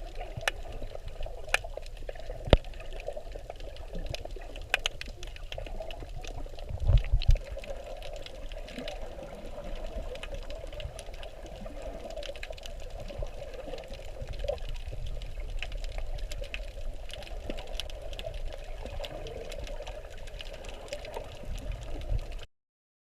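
Muffled water sound heard underwater, a steady wash dotted with many small sharp clicks. A few loud low thumps come about seven seconds in, and the sound cuts off near the end.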